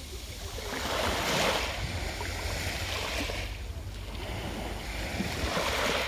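Small waves breaking and washing up a pebble beach, then drawing back: two rushes of surf, the first swelling about a second in and the second near the end.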